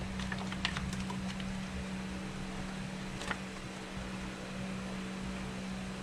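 Steady low hum, with a few light taps and scrapes of a utensil against a stainless steel pot of tomato sauce in the first second and one sharper tap about three seconds in.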